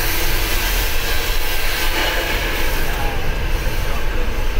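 Intercity bus on the move: a steady low engine rumble under a loud rushing hiss of road and wind noise.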